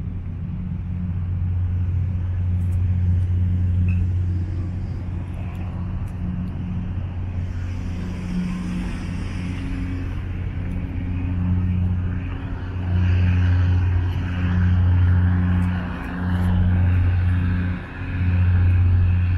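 A steady low mechanical hum with a hiss above it. About two-thirds of the way through, it starts to swell and dip every second or two.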